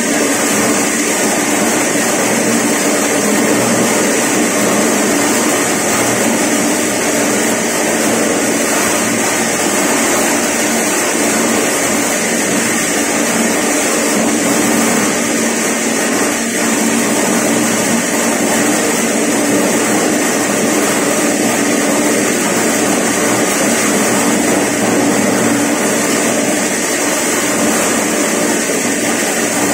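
PLT-SRMS150 mini maize sheller, driven by a 1.5 HP single-phase electric motor, running steadily while shelling corn cobs. A loud, even machine noise with no breaks.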